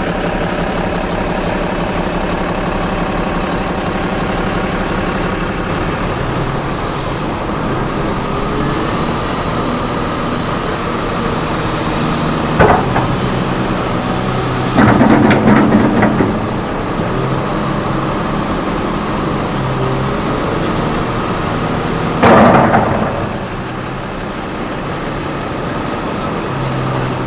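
Komatsu HB365NLC hybrid excavator's diesel engine running steadily. Three loud, sudden noises cut through it: a short one about halfway, a longer one lasting about a second a couple of seconds later, and another near the end.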